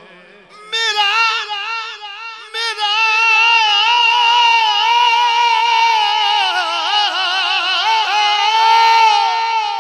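A single high voice singing a long, ornamented melismatic naat phrase with no instruments heard. The pitch wavers and trills throughout, with a short break about two and a half seconds in.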